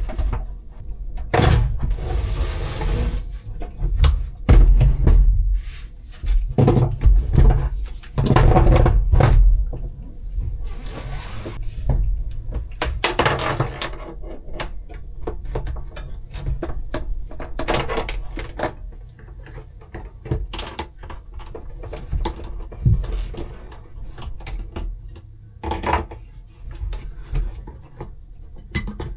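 Irregular clunks, knocks and rustling as lead-acid boat batteries and their cables are set into a cramped compartment and fitted, with a few short scraping noises.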